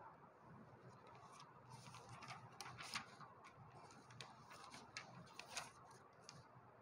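Near silence in a small room, with faint scattered clicks and rustles from handling paper notes and a whiteboard marker, busiest about three seconds in and again around five to six seconds.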